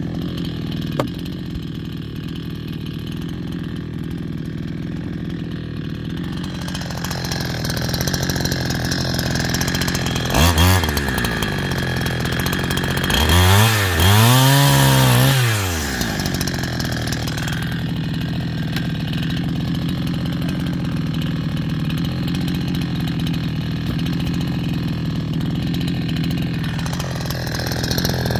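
A 70cc chainsaw running steadily at low speed, then from about six seconds in cutting through a hard stringybark log, its engine revving up and back down twice near the middle.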